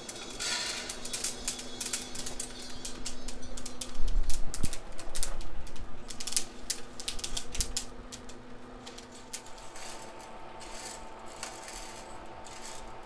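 Coffee beans popping in second crack, many sharp rapid snaps like a typewriter, from a Feima 100n roaster's batch of dark-roasted beans; second crack marks a dark roast. A loud thump and rattle comes about four seconds in, over a faint steady hum.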